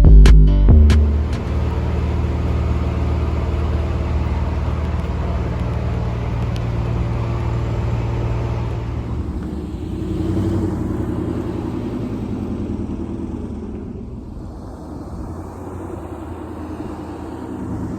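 A vehicle's engine running with a steady low rumble, which eases off about halfway through. Loud bass hits end about a second in.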